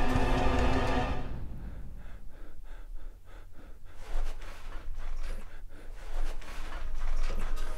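Music fades out in the first second, then a man breathes heavily in a run of quick, sharp gasps.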